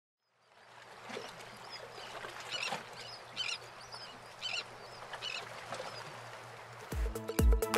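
Water ambience fading in as a steady wash, with a bird giving short high calls about once a second over it. About seven seconds in, house music with a heavy, regular kick drum starts and becomes the loudest sound.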